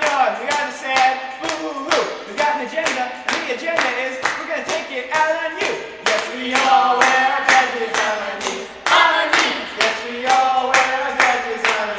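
Rock band playing an instrumental passage: guitars under a quick, steady drum beat of about four hits a second, with no vocals.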